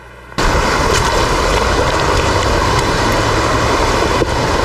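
Rushing water of a woodland stream and waterfall pouring over rocks: a loud, steady roar that cuts in suddenly about half a second in.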